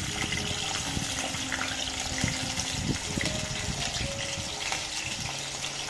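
Hot oil sizzling steadily in a pan as wet raw potato cubes are dropped in by hand, with small soft knocks of pieces landing.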